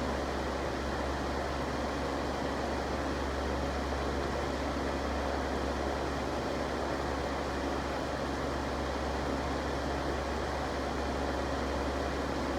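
Electric fan running steadily, an even rushing noise with a constant low hum that does not change.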